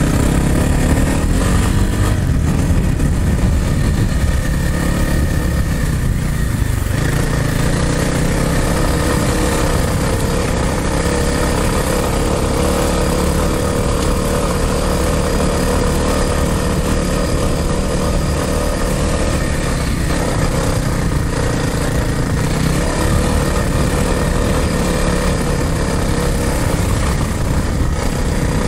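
Dirt bike engine running continuously on a trail ride, its pitch rising and falling steadily with the throttle.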